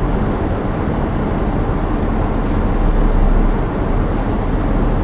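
Toyota Celica on the move: a steady low engine and road rumble with no breaks.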